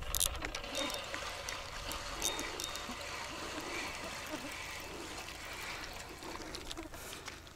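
Water trickling and splashing steadily, with a few faint clicks.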